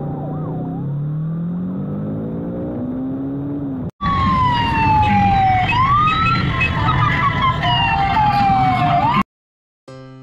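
A motorcycle engine accelerating, its pitch climbing, with a siren wailing faintly behind it. About four seconds in, a cut to a loud police escort siren sweeping down and whooping up again. It stops abruptly near the end, and piano music starts after a short gap.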